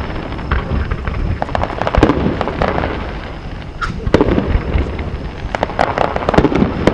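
Fireworks display: aerial shells bursting in a rapid, irregular series of sharp bangs and crackles over a continuous low rumble, with the heaviest bangs about two, four and seven seconds in.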